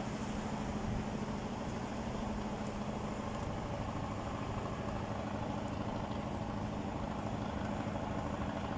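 Steady city background noise: a continuous traffic rumble with a low steady hum running underneath.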